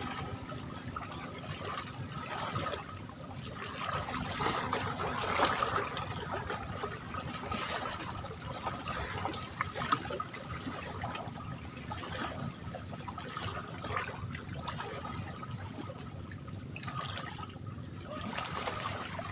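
Shallow lake water lapping and trickling around a wading fisherman, with small irregular splashes and drips as he gathers up his wet cast net.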